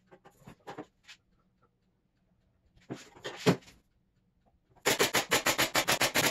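A crown stapler fastening hardboard to a cabinet back, firing a rapid, evenly spaced string of sharp shots that starts about five seconds in, after a few light knocks and a couple of sharper ones from handling the panel.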